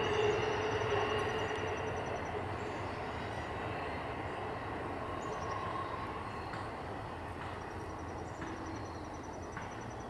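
Freight train cars rolling past on the rails, the wheel and track noise slowly fading as the end of the train moves away.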